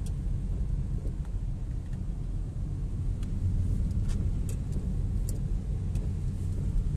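Steady low rumble of a car driving on a wet road, heard from inside the cabin in heavy rain. A few sharp ticks come in the second half.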